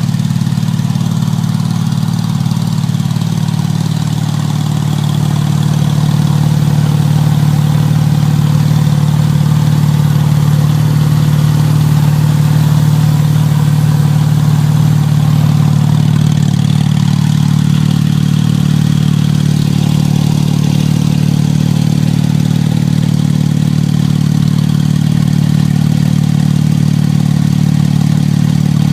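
Porsche 997 GT2's twin-turbocharged 3.6-litre flat-six engine idling steadily, becoming slightly louder about five seconds in.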